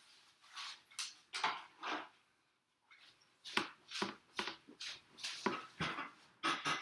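Quick footsteps on a hard floor: a run of short scuffing knocks, about three a second, starting about halfway through, after a few scattered knocks at the start.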